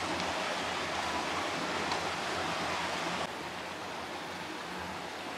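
Steady rush of water running and splashing at a wooden water wheel, dropping to a quieter level about three seconds in.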